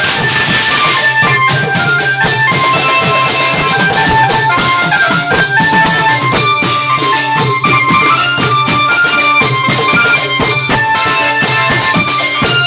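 Thai klong yao long-drum ensemble playing traditional music: a steady, dense drum rhythm with a line of quick melody notes over it.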